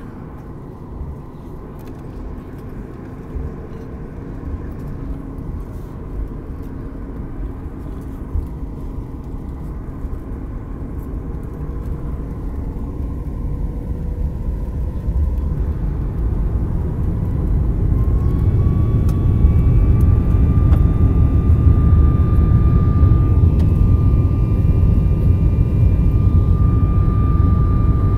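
Boeing 737 MAX 8's CFM LEAP-1B turbofan engines heard from inside the cabin, running low during the taxi onto the runway, then spooling up to takeoff thrust about two-thirds of the way in. A whine rises and holds steady while the low engine noise grows much louder.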